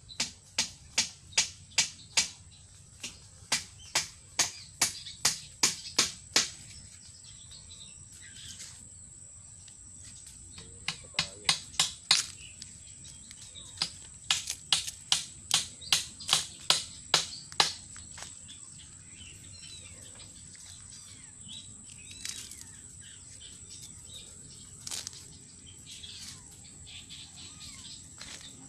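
Field ambience: a steady high-pitched insect drone, cut across by runs of sharp ticks, about two or three a second, in three runs over the first two-thirds, with two single ticks later.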